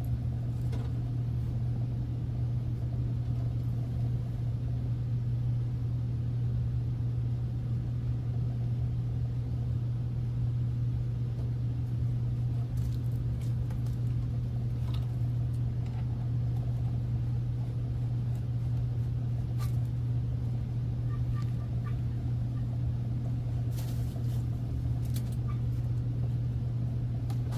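A steady low hum with a few light clicks and taps scattered through it, typical of wrenches working on gas-line fittings.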